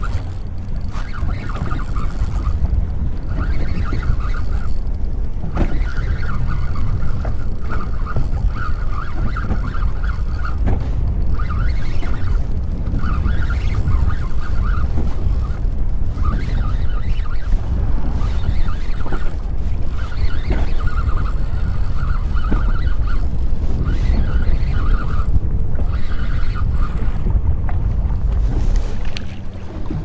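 Wind buffeting the microphone on a boat, a steady low rumble, with a mid-pitched whirring that comes and goes every second or two.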